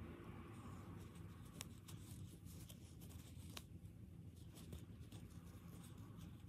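Faint handling sounds of crocheting: a metal crochet hook and yarn rubbing and catching, with a few soft ticks, over a low steady hum.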